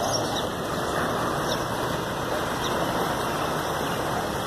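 Fast floodwater rushing steadily past: a river swollen and running in flood.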